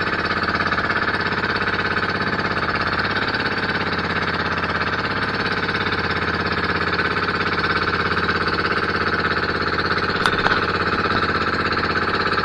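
Bangka outrigger boat's engine running steadily underway, an even, loud buzzing drone. A single sharp click about ten seconds in.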